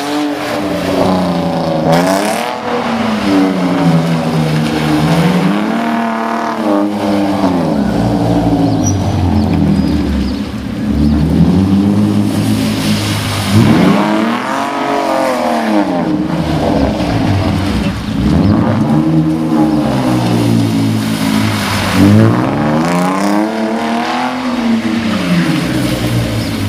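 Car engine of a BMW E36 3 Series sedan revving up and down over and over as it is driven hard through tight turns, the pitch rising and falling every two to three seconds.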